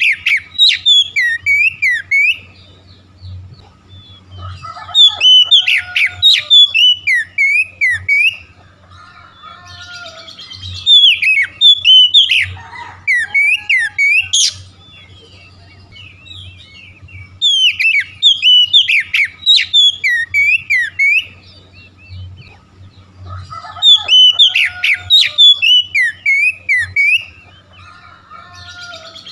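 Oriental magpie-robin singing: loud bursts of rapid whistled and chirped notes, each a couple of seconds long, recurring about every six seconds with softer notes between.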